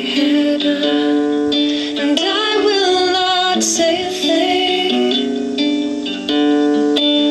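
Music: a plucked string instrument, guitar-like, playing a melody of held notes, with a voice singing along.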